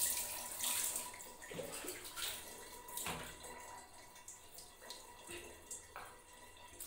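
Water poured from a plastic mug over a wet cat and splashing onto the floor, loudest in the first second, then softer, scattered splashes as the cat is washed by hand.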